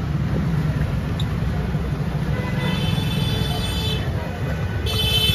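Steady rumble of street traffic. About two and a half seconds in, a high steady tone with many overtones sets in faintly and becomes much louder near the end.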